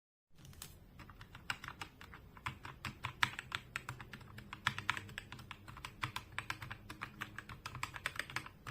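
Typing on a compact 68-key wireless mechanical keyboard: a quick, uneven run of key clicks that starts a moment in.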